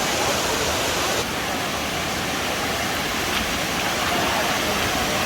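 Large waterfall pouring down: a loud, steady rush of falling water, dipping slightly about a second in.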